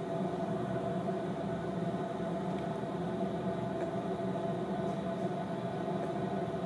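Steady machine hum, like a kitchen appliance or extractor fan running, with a few faint clinks of a ladle against the pot.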